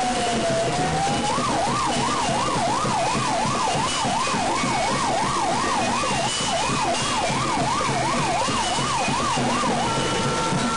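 Fire truck's electronic siren: the tail of a slow wail sliding down in pitch, then a fast yelp sweeping up and down about three times a second, with a short break near the middle, cutting off about a second before the end.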